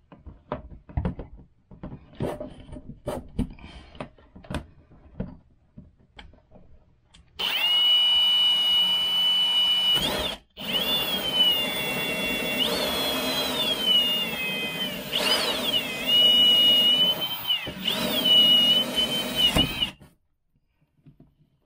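Cordless drill turning a 1 1/8-inch hole saw to cut up through an RV ceiling. A few knocks and clicks come first, then the drill runs for about twelve seconds with one brief stop. Its whine rises and falls as the trigger and the load change.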